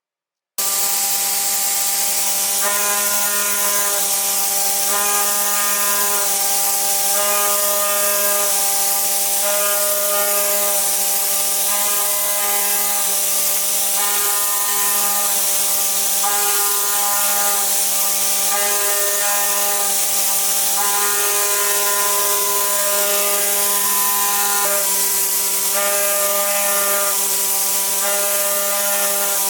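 CNC vibrating-knife cutting machine running as it cuts rubber gasket material: a steady hum and hiss with several whining tones that switch on, off and shift every second or two as the cutting head moves.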